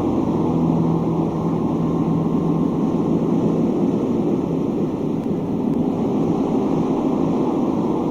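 Wind sound effect: a steady rushing, wind-like noise, with a low held note fading out about three seconds in.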